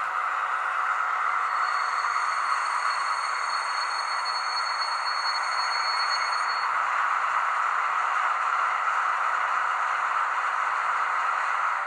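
Sound decoder in an H0 model of the ÖBB 2143 playing its twelve-cylinder diesel engine at idle through the model's small speaker. A high whine sits over it from about two seconds in until nearly seven seconds.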